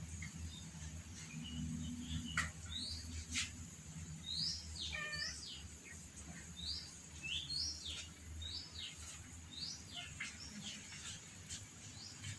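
Small birds chirping: a scatter of short, high, quickly rising or falling chirps, over a low steady hum.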